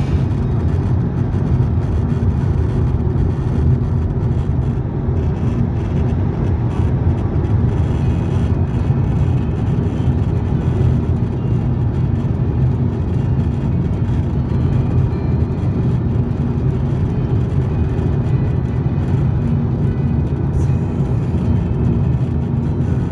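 Steady low road and engine noise heard inside a car's cabin while it cruises along a highway.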